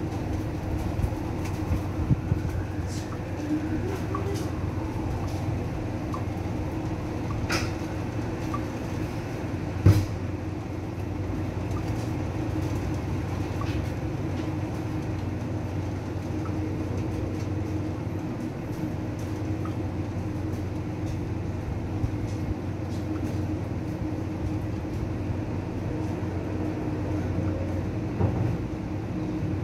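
Rain falling steadily, an even rushing noise with a low steady hum beneath it. A few sharp knocks cut through, the loudest about ten seconds in.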